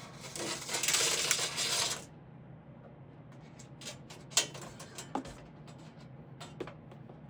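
Hands working with wire and small hand tools: a rustling scrape for about two seconds, then scattered light clicks and taps, the sharpest about four seconds in.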